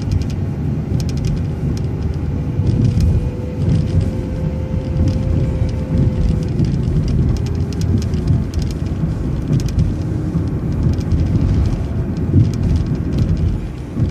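City transit bus driving, heard from inside: a steady low engine and road rumble with small rattles, and a faint whine that fades out about halfway through.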